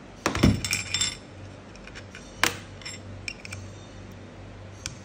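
Steel parts clinking against a steel chain sprocket and a sheet-metal plate as the sprocket assembly is taken apart by hand: a short ringing clatter about half a second in, a sharp click about halfway through, then a few light ticks.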